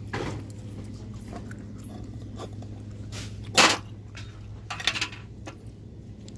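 Short rustling and knocking handling noises, the loudest about halfway through, over a steady low electrical hum.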